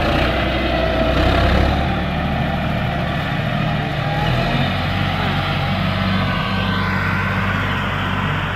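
John Deere 5065E tractor's three-cylinder diesel engine running under load while pulling a disc plough. It is loudest in the first couple of seconds as the tractor passes close, then runs steadily a little quieter as it moves away.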